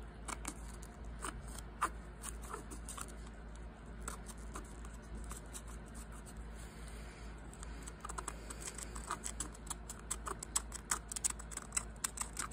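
A small tool scraping carbon out of the ring grooves of a Husqvarna 2100cd chainsaw piston: irregular scratchy clicks and scrapes of metal on metal, coming faster and busier in the last few seconds.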